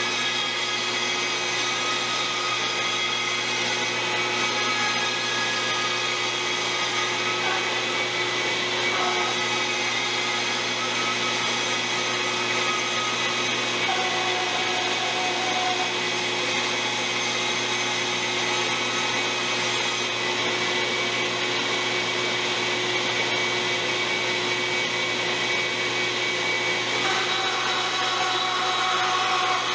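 Bandsaw running steadily with its dust collector drawing through the hose while the blade cuts a western red cedar paddle blank. The tone of the cut changes briefly about halfway through and again near the end.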